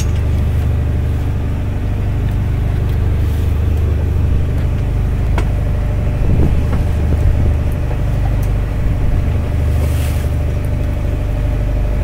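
Fishing boat's engine running steadily with a low, even hum, with a few faint clicks and a brief hiss of water or wind about ten seconds in.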